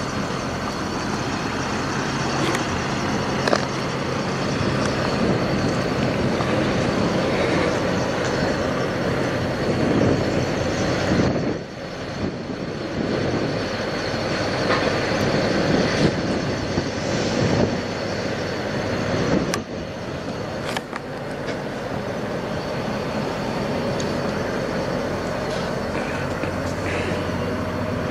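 Diesel semi-truck engine idling steadily under a constant wash of outdoor noise, dipping briefly twice.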